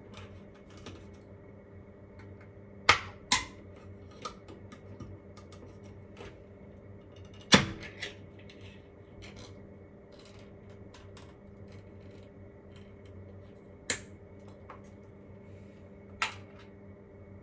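Scattered clicks and knocks of kitchen utensils and containers being handled, over a steady low hum. Two sharp knocks come about three seconds in, the loudest about halfway, and two more near the end.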